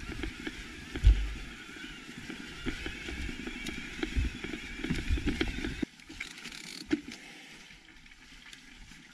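Electric mountain bike rolling slowly over grassy ground: tyre noise with bumps, knocks and rattles from the bike. The noise drops off suddenly just before six seconds in as the bike stops, leaving a quieter hiss with a few clicks.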